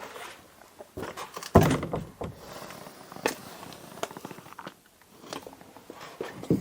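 Scattered thumps and knocks with shuffling, the loudest thump about a second and a half in: someone moving about and handling things in a cluttered room.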